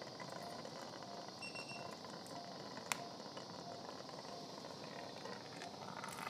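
Quiet operating-room background: a steady low hiss, a faint short high beep about one and a half seconds in, and a single sharp click about three seconds in.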